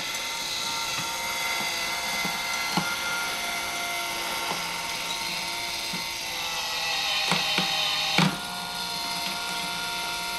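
Amico 12-volt DC 5 rpm gearmotor running steadily, turning a 1-inch auger bit that pushes dry dog kibble out of a plywood hopper. The whine is even, with a few sharp clicks along the way.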